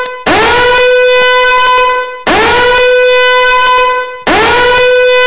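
Countdown timer alarm sounding: a loud horn-like blast that swoops up in pitch at its start and then holds a steady tone, repeated about every two seconds, three blasts with short gaps between them.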